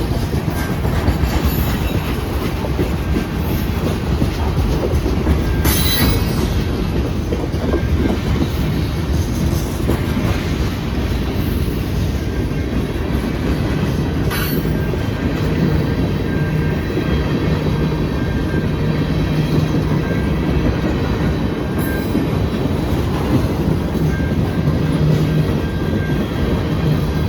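CN freight train rolling past, a steady loud rumble of wheels on the rails with clickety-clack and a low steady hum. There are sharp clanks about six seconds in and again about fourteen seconds in.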